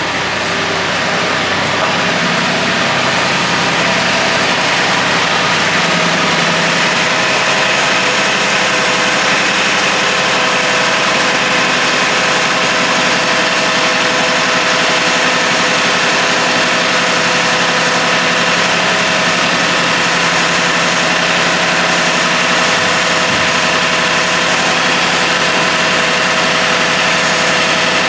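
Diesel engine of a Cub Cadet garden tractor running steadily.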